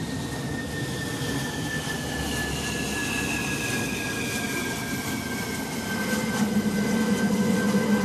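Jet aircraft engine whine that falls slowly and steadily in pitch, over a low rumble that grows louder near the end.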